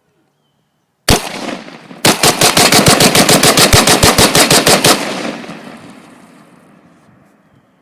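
Gunfire: a single shot, then about a second later a rapid string of about thirty shots at roughly ten a second, lasting about three seconds. The echo trails off slowly afterwards.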